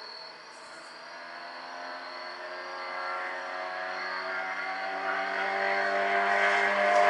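A car approaching at speed along the road, its engine hum growing steadily louder as it nears.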